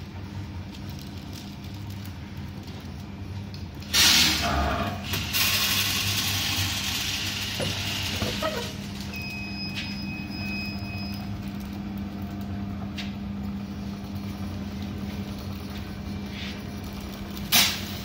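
Continuous band sealer running with a steady low hum. A foil pouch crinkles loudly as it is handled, about four seconds in and for a few seconds after, with one more short crinkle near the end.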